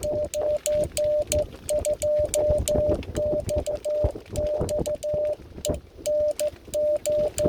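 A Morse code (CW) tone of about 600 Hz from an amateur radio receiver, keyed in short and long elements. The 47 GHz signal arrives by rain scatter. Receiver noise with frequent sharp clicks lies underneath.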